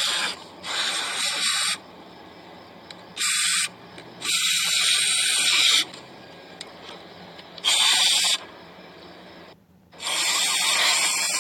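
Aerosol cleaner spray hissing in about six bursts, some short and some over a second long, with pauses between them, as it flushes black grime out of a car starter motor's parts.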